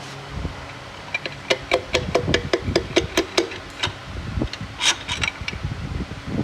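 Hand tools working on the engine's connecting rods during teardown: a fast run of sharp metallic clicks and taps, several a second, starting about a second in, with a brief hiss near the end.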